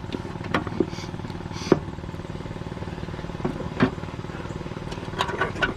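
Scattered light metallic clicks and taps as a bolt and a new blade spindle are handled against a steel mower deck, over a steady low machine hum.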